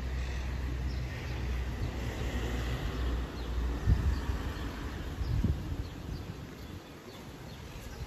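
Outdoor ambience: a low steady rumble that fades out about five seconds in, two dull thumps around four and five and a half seconds in, and faint high chirps.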